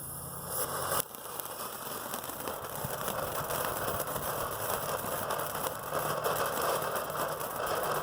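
Small TNT Fireflies novelty fireworks burning with a dense, steady crackling fizz. It sets in sharply about a second in and grows a little louder.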